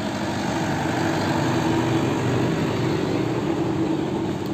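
Engine of a trackless tourist road train running as it drives slowly past, swelling about midway and easing off near the end.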